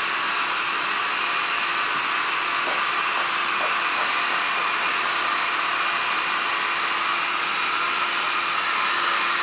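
Handheld hair dryer running steadily, a constant rushing blow of air with a faint steady motor hum under it.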